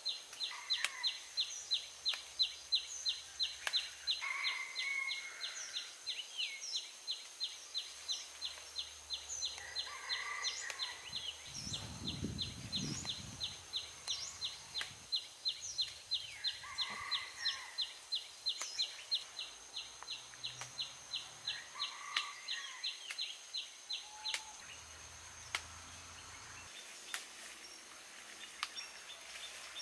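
Countryside ambience: a high chirp repeating evenly, about four times a second, that stops about twenty-four seconds in, with birds calling now and then over it.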